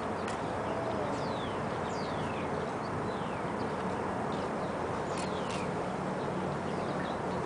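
Steady outdoor background noise with a low hum, broken by several short, high chirps that fall in pitch, in two small clusters about two and five seconds in.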